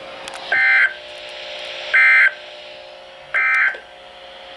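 NOAA Weather Radio SAME end-of-message data bursts sent three times to close the Required Weekly Test: three short, buzzy digital chirps about a second and a half apart, heard through a weather radio receiver over faint static.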